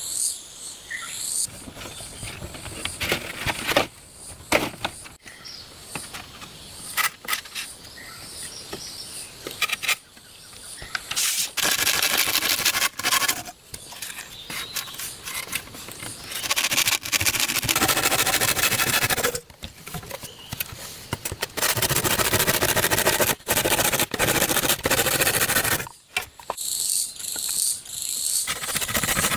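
Long stretches of rasping, scraping noise, with birds chirping near the start and again near the end.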